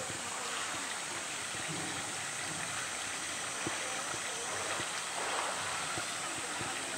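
Steady rush of running water in a polar bear's pool, with a few faint knocks.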